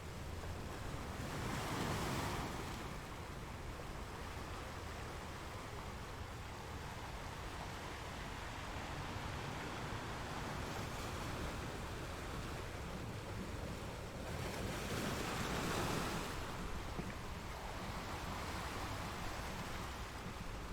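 Ocean surf washing steadily, with two larger waves swelling and breaking, one about two seconds in and another about fifteen seconds in.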